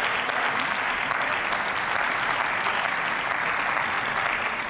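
Parliamentarians applauding in a plenary chamber: steady many-handed clapping that thins slightly near the end.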